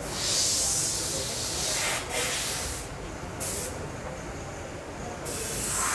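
Hissing in several long bursts of a second or two each, cutting off sharply between them.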